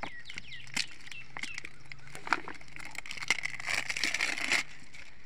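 Packet and plastic bottle being handled with small rustles and clicks, then liquid pouring from a bottle into a metal tub of spray mix for about a second toward the end.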